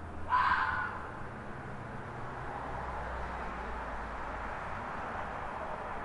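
A fox screams once, a single harsh call of about half a second shortly after the start, over a steady background hiss.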